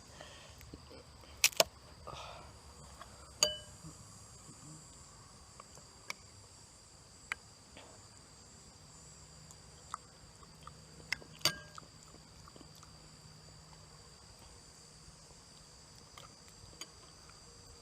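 Steady high-pitched chirring of crickets. A few sharp clicks and clinks cut through it, the loudest a pair about one and a half seconds in, one with a short ring at three and a half seconds, and another just past eleven seconds.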